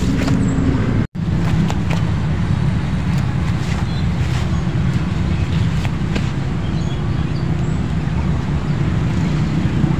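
Steady low outdoor rumble with faint light ticks above it, cut off briefly about a second in.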